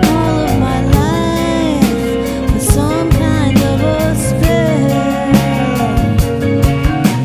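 Rock ballad played by a band: a flute carrying a gliding melody over guitar, bass and drums, with a steady beat.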